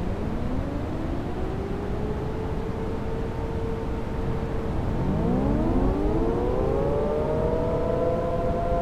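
Synthesized outdoor warning sirens winding up one after another, each rising in pitch and settling on a steady tone. The first starts right away and more join about five seconds in, louder: a siren system starting a steady alert. A steady heavy-rain hiss runs underneath.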